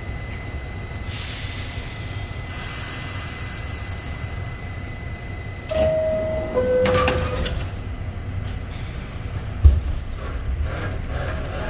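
New York City subway train car standing in a station: two hisses of air, then a two-note descending chime and a heavy thump about ten seconds in, the sequence of the doors chiming and closing.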